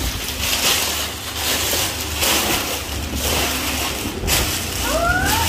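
Plastic and paper toy packaging crinkling and rustling on and off as it is handled and unwrapped by hand, over a steady low hum.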